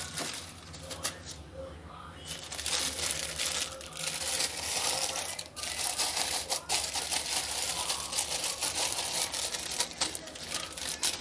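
Fine salt pouring from a plastic packet into a ceramic jar: a dense rattle of grains hitting the pot, with the packet crinkling. It starts faintly and pours fuller from about two seconds in.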